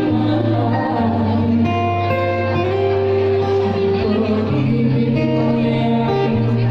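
Live band music: women's voices singing together into microphones, backed by guitar and a steady low bass line that changes note a couple of times.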